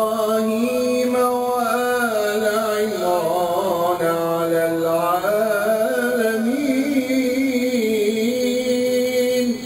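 A solo male voice reciting the Quran in the melodic, chanted style of tajwid. It is one long unbroken phrase, the voice winding up and down in ornaments around held notes, and it breaks off near the end.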